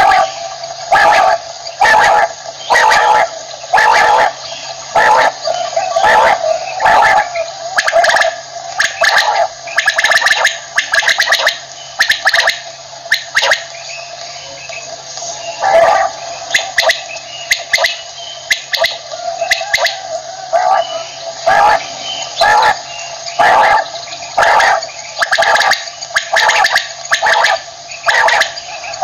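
Common quail (batair) calling: short, loud calls repeated about once a second, easing off briefly past the middle before picking up again.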